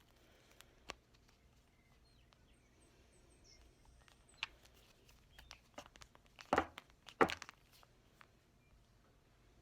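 Hand-squeezed 5/32-inch leather hole punch cutting through two layers of synthetic harness strapping: two short, crunching snaps a little under a second apart, past the middle, after a few light clicks of the tool being handled.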